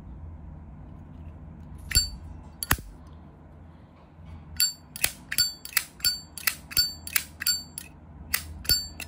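Zippo lighter lid clicking open and shut with a metallic clink: two clicks about two seconds in, then a quick run of about a dozen, roughly three a second.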